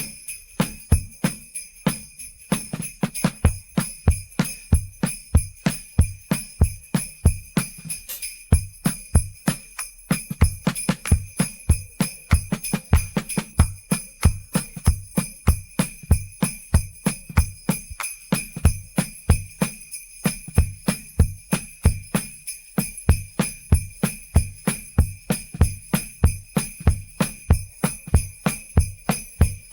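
Isolated drums-and-sleigh-bells track separated from a pop song's mix: sleigh bells jingle continuously over a steady drum beat, with a low thump on every beat.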